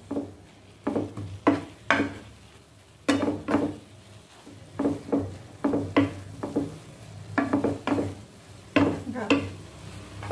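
A utensil stirring and scraping in a frying pan as tamarind and wilted gongura leaves are fried until the tamarind softens. The strokes come irregularly, about one or two a second and sometimes in quick pairs, each a short scrape-knock with a brief ring from the pan, over a faint sizzle of frying.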